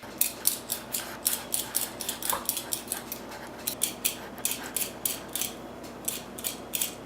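Kitchen utensil strokes repeating quickly and evenly, about four a second, as food is worked by hand in the kitchen.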